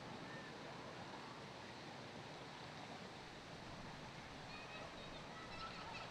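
Steady rush of surf on the shore, with a few faint, short high bird chirps in the second half.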